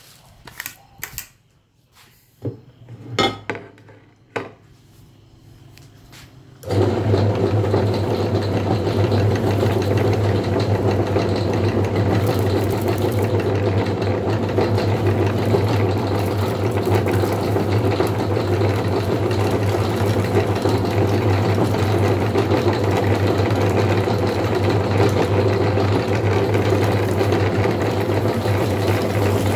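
Electric meat grinder switching on after a few handling knocks and clicks, then running with a steady, unchanging motor hum as noodles are fed through it.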